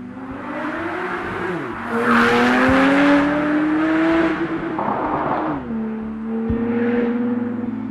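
Porsche 991.2 Turbo's twin-turbo flat-six running through an Inconel performance exhaust at wide open throttle: the engine note climbs, drops sharply, climbs again for about two seconds, then falls away about five seconds in and settles to a steady lower note.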